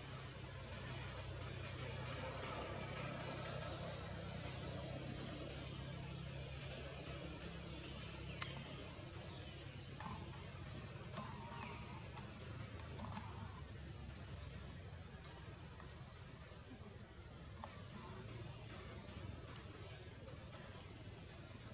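Forest ambience: many short, high, falling chirps repeat over a steady hiss.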